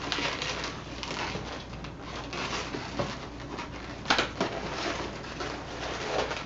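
Red latex modelling balloons being twisted into pinch twists: rubbing, rustling latex with a few sharp squeaks and snaps.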